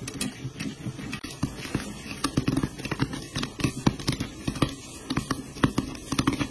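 Sugar-coated popcorn tumbling inside a lidded pan as the pan is swirled round on a gas burner. It makes a dense, irregular run of sharp clicks and light knocks as the popcorn hits the pan and the glass lid.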